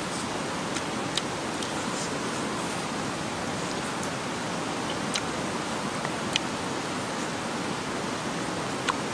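A steady, even rushing noise with a few sharp clicks scattered through it.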